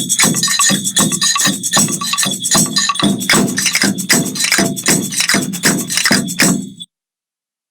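Music with a quick, regular percussion beat that cuts off abruptly about seven seconds in, leaving silence.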